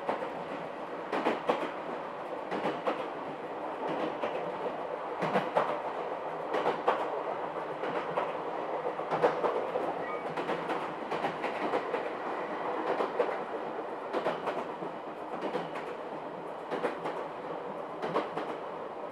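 Chichibu Railway 7800 series electric train, a two-car set rebuilt from ex-Tokyu 8090 series cars, running along the line. Its wheels make a steady rumble on the rails and click over rail joints every second or two.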